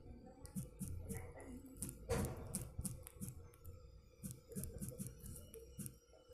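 Rapid tapping of typing on a smartphone's touchscreen keyboard: quick light clicks several times a second, with one louder, longer sound about two seconds in.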